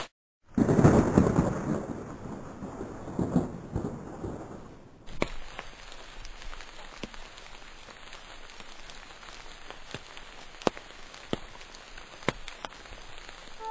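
Thunderstorm: a roll of thunder starts about half a second in and dies away over the next four seconds, then softer rain with scattered drops tapping.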